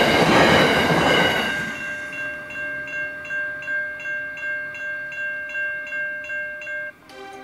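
Last wagons of a freight train rolling past with wheel clatter on the rails, fading out within the first couple of seconds. A level-crossing warning bell then rings on its own at about three strokes a second, until a cut to electronic music near the end.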